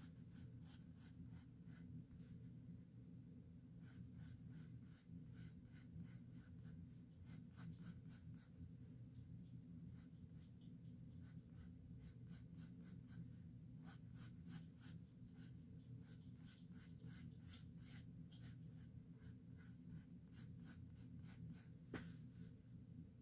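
Faint scratching of a drawing tool on sketchbook paper: quick runs of short sketching strokes with brief pauses, and one sharper tick near the end, over a steady low hum.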